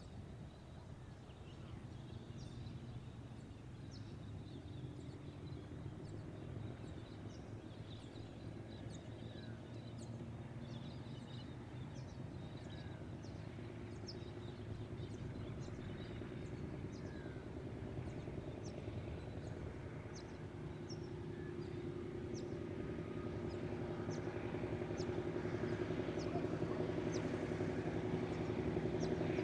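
Brill Model 75 railcar's engine running as it pulls away and draws nearer, growing steadily louder, with birds chirping throughout.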